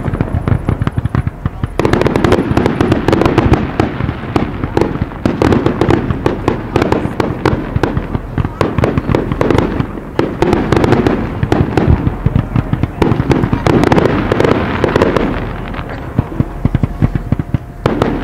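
Fireworks display of aerial shells up to 3 inch: a dense, unbroken run of rapid launches, bangs and crackles, thinning briefly about a second and a half in and again near the end.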